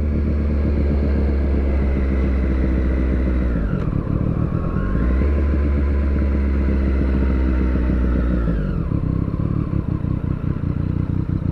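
Triumph Street Triple 765R's three-cylinder engine running at low speed. The revs dip about four seconds in and pick up again, then drop to a lower, uneven note near the end.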